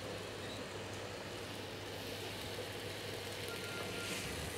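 Steady sizzle of strawberries cooking with butter and sugar in a pan on the heat, over a faint low hum.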